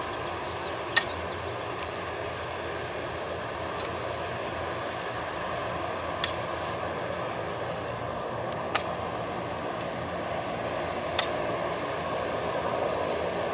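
Antonov An-12BK's four Ivchenko AI-20 turboprops running as the aircraft taxis: a steady engine drone with a faint high whine, growing a little louder near the end. A few short sharp clicks cut through it.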